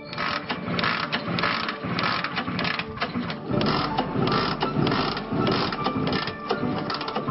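Rapid, irregular mechanical clattering and ratcheting clicks.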